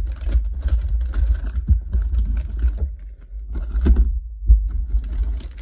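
Soft-plastic fishing bait packages being handled: irregular crinkling and rustling of plastic with small clicks, in bursts with a short pause near the middle.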